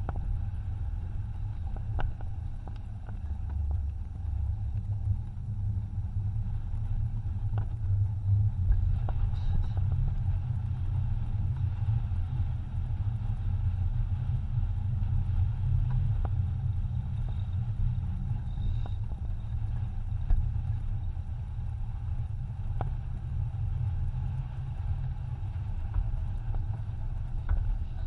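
Wind buffeting the microphone of a camera mounted on a sailing yacht under way, giving a steady low rumble. A few small sharp knocks from the boat's deck gear come through it.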